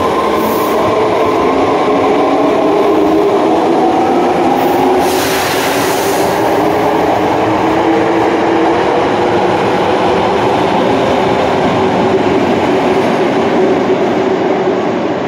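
Sakaisuji Line subway train running loudly through the underground station, a steady rumble with several whining tones on top. A brief hiss comes about five seconds in.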